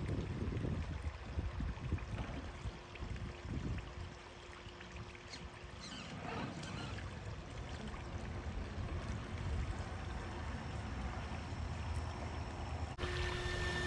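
Shallow creek water trickling over rocks, with the faint steady whine of an Axial SCX6 1/6-scale RC crawler's electric motor and drivetrain as it crawls over boulders. The whine is louder near the end.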